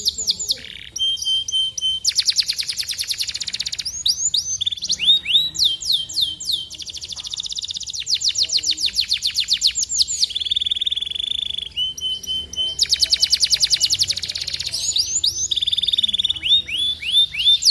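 Domestic canary song: a continuous run of changing phrases, with rapid trills of many notes a second, quick falling sweeps, and a steady buzzing trill held for about two seconds in the middle.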